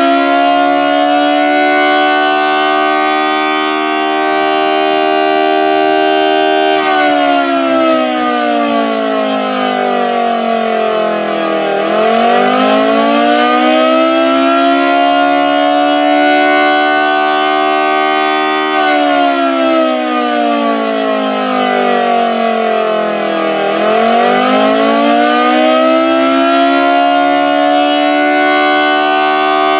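Federal Model 2T two-tone civil defense siren sounding a wail. Its loud chord holds steady, then falls in pitch and climbs back up, twice, each dip and recovery taking about ten seconds.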